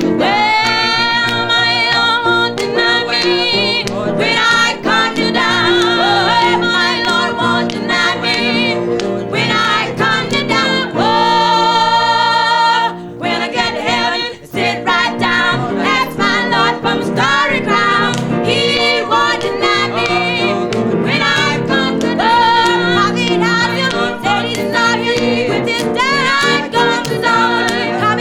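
Gospel song: a singing voice in long, wavering held notes over instrumental accompaniment.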